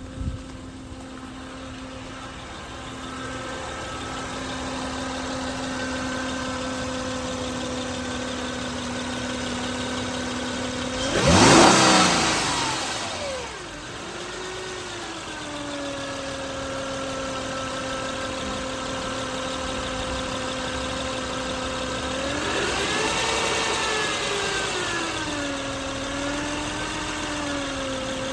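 2007 Honda Pilot's 3.5-litre V6 idling with a steady whirring whine, blipped sharply once about eleven seconds in and revved more gently about twenty-three seconds in; the whine rises and falls with engine speed.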